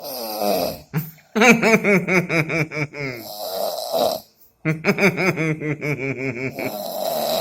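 A person snoring loudly in sleep: two long snores with a fast, pitched rattle of about six pulses a second, each followed by a breathy hiss of air. The harsh rattle is likened to a blocked bajaj auto-rickshaw exhaust.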